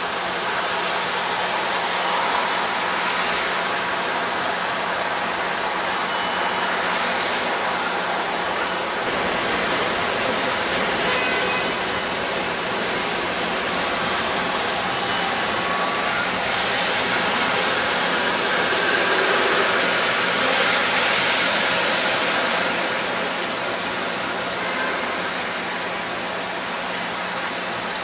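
Steady rushing noise of city street traffic, swelling for a few seconds past the middle.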